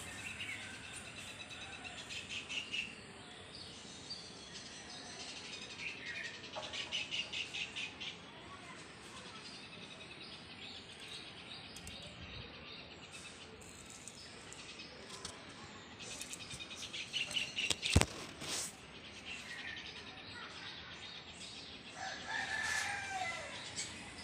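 Birds chirping and calling in several short bursts, with a sharp click about three-quarters of the way through.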